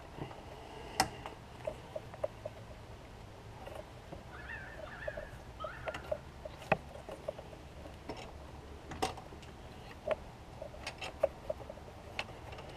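Scattered sharp clicks and metal knocks of parts and tools being handled in a car's engine bay while an external wastegate is worked into place, with runs of small ticks and a few faint chirps in between.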